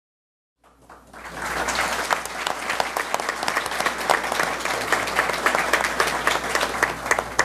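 Audience applauding in a hall: after a moment of silence the clapping starts about half a second in, builds over a second, and goes on steadily.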